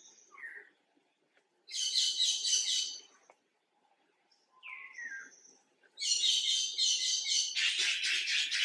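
A songbird singing: a high held whistle and a short falling note, then a fast buzzy trill. The phrase comes twice, the second trill longer and louder.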